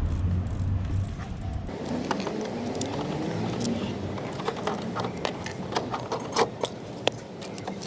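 Small sharp clicks and taps of hands working door-handle mechanism parts and a wiring connector inside a car door. A low hum cuts off about two seconds in.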